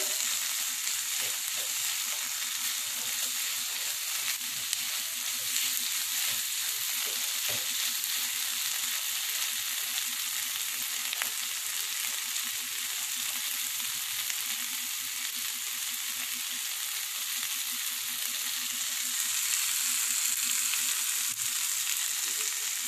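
Boiled black-eyed beans, onion, capsicum and tomato sizzling steadily as they sauté in a frying pan, with a silicone spatula stirring through them at first.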